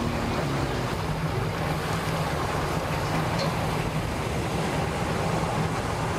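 Twin Mercury 300 outboard motors running at low speed, a steady low drone, with the churn of water and the wash behind the boat.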